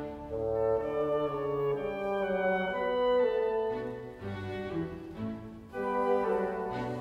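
Instrumental background music with a melody of held, sustained notes.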